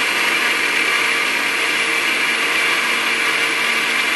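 Countertop electric blender running at a steady speed with a full jar of milk and strawberry paste, a continuous motor whine over the churning liquid.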